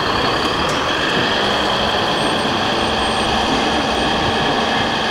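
Steady electric whine and mechanical hum of a radio-controlled scale Liebherr crawler dozer's drive as it pushes soil, over the dense murmur of a busy exhibition hall.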